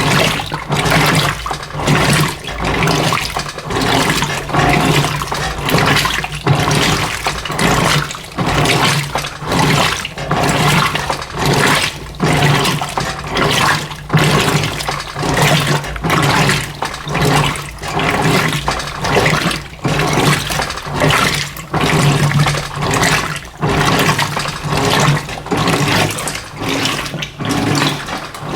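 Electrolux LF90 top-loading washing machine agitating a load of rugs on a low water level: water sloshing in regular surges a little more than once a second over a steady motor hum.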